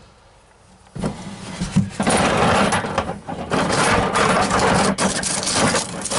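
A hand rummaging through a plastic bin of square-cut steel coil springs: loose metal springs clattering and scraping against each other. It starts about a second in, after a quiet moment, and goes on as a dense, continuous jangle.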